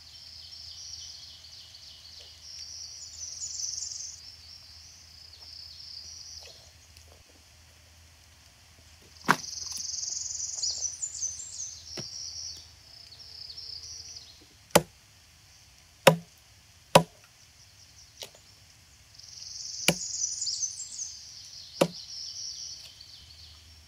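Machete chopping branches into kindling: single sharp chops on wood, about eight of them at irregular intervals through the second half. Birds chirp in bursts of several seconds.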